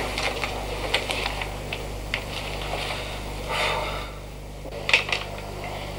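Quiet room tone with a steady low hum, a few faint scattered clicks and a short rustle about three and a half seconds in.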